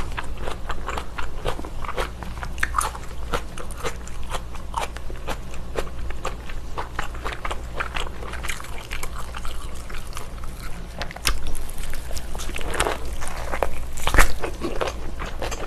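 Close-miked biting and chewing of baked slab bacon, with many wet mouth smacks and clicks, and a louder bite near the end.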